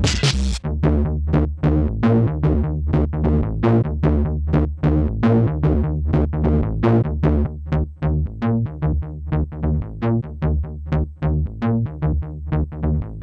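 Electronic music loop on synthesizer: a run of short, quickly decaying plucked notes, about four a second, over a sustained bass line. A harsh, gritty burst of the same music cuts off about half a second in.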